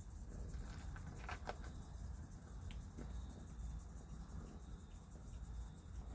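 Faint, steady chirping of insects such as crickets over a low rumble, with two soft clicks close together about a second and a half in.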